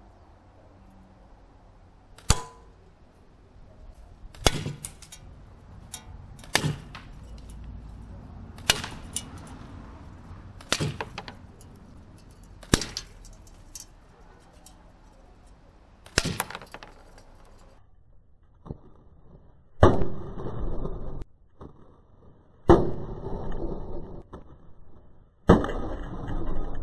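8 mm steel balls from a slingshot hitting an enamelled steel bowl clamped in a small vise: about ten sharp metallic hits, roughly two seconds apart. The last three are louder, each ringing on for about a second, as the balls punch through the bowl.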